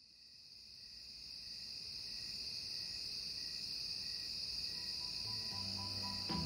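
A chorus of crickets fading in and then trilling steadily. Soft music notes begin to come in near the end.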